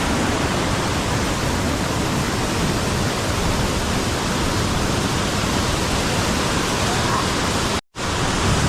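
Steady rushing of a waterfall, the water pouring down from a height of about 70–80 feet. The sound cuts out for a split second near the end.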